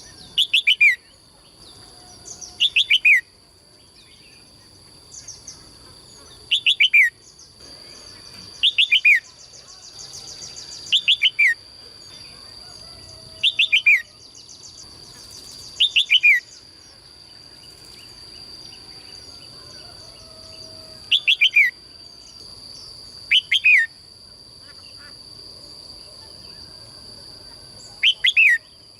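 A bird repeating a short call, each a quick cluster of notes falling in pitch, about every two seconds with a few longer pauses. A steady high-pitched tone runs underneath.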